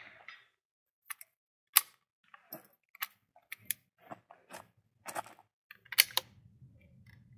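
A bolt-action .22 rimfire rifle being handled between shots: a string of about a dozen sharp metallic clicks and snaps from the bolt being worked, two of them much louder, about two seconds in and about six seconds in.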